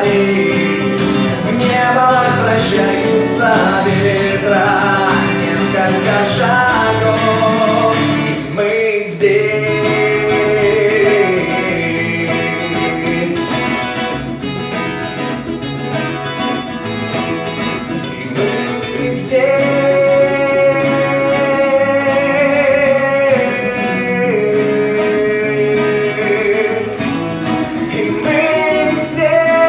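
Live acoustic music: a man singing, accompanied by two acoustic guitars, one strummed and one picked.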